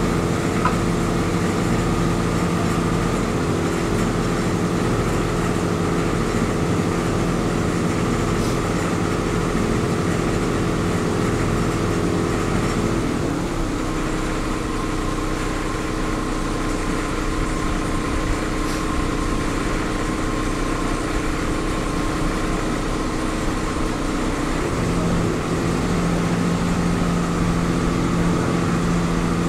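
Boat engine running steadily, heard from aboard the moving boat, with its note shifting slightly about halfway through and again near the end.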